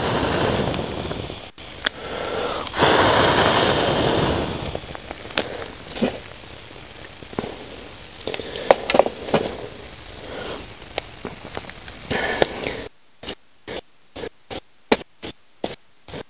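Two long rushing, hissing noises, then scattered sharp clicks and small crackles of gear being handled; near the end the sound cuts in and out in a string of short dropouts.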